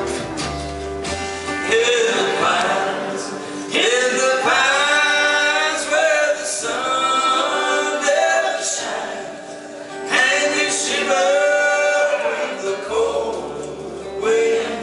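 A country band playing a song, with a man singing over guitar accompaniment. The sung phrases come in several lines with short breaks between them.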